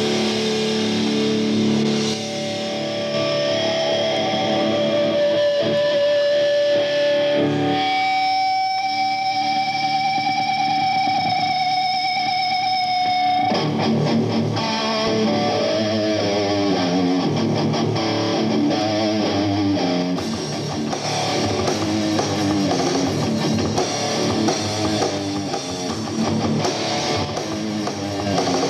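Electric guitar playing through effects in a live rock band instrumental. Held chords give way to one long wavering note, and then a busier riff starts about halfway through.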